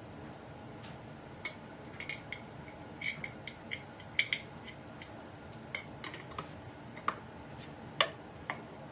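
Light metal clicks and clinks from hand tools being handled, irregular and scattered, with a sharper clink about four seconds in and another near the end; there is no engine cranking.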